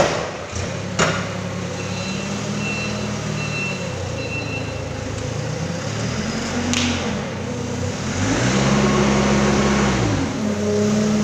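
Forklift engine running under load, its pitch rising and falling as it is revved while the truck moves and lifts. Two sharp knocks at the start and about a second in, and a short run of faint high beeps a couple of seconds in.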